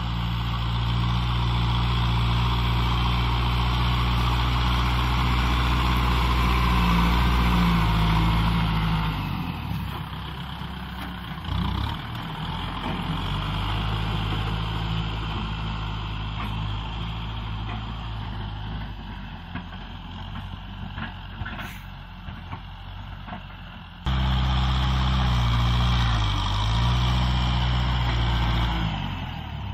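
Kubota M6040 SU tractor's diesel engine running steadily under load as its front dozer blade pushes soil. It is loudest at first, drops back to a quieter, rougher drone through the middle, and turns abruptly loud again near the end.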